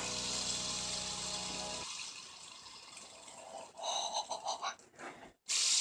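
Faint, steady whirring of a spinning fidget spinner that stops abruptly about two seconds in, followed by a few short faint sounds near the end.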